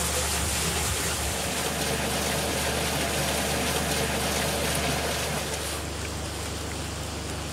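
Steady rushing noise, even and unbroken, easing slightly about six seconds in.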